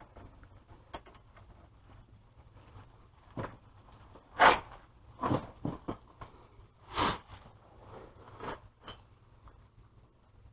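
Scattered knocks and clanks of hand tools and parts being handled during work on a minivan's wheel hub, the loudest about four and a half and seven seconds in.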